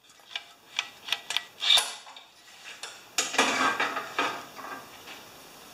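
Light metallic clinks and clatter from handling a lawnmower engine's sheet-metal rewind starter housing and working on the engine: a few sharp clicks over the first two seconds, then a burst of rattling about three seconds in.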